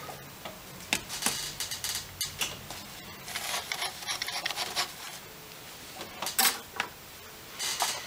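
Scattered light clicks, taps and rustles of a soldering iron and wires being handled while a wire is soldered onto a flight controller board, with a few short bursts of hiss.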